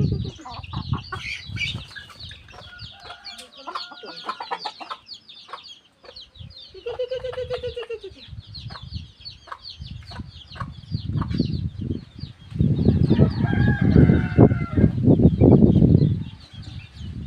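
Lemon-bellied white-eye (kecial kuning) singing a fast, continuous string of high chirps, with chickens clucking in the background. Heavy low-pitched noise swells up loudest from about 12 to 16 seconds in.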